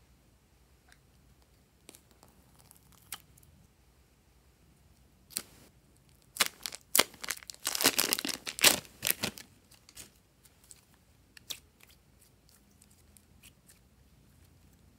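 Plastic piping bag crinkling and tearing as it is peeled open around thick red slime: a burst of crackly rips and rustles from about six to nine and a half seconds in, with scattered small clicks and rustles before and after.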